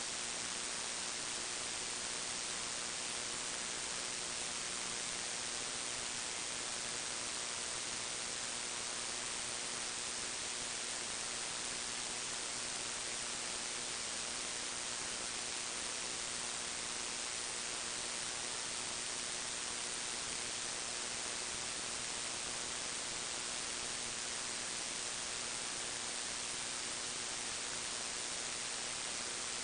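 Steady hiss with a faint low hum and no music or voice: the bare noise floor of a 1995 concert recording.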